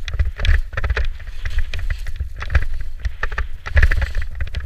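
Skis turning fast through chopped-up powder: repeated hissing scrapes of the edges and spraying snow, one every half second or so, over heavy wind rumble on the camera microphone.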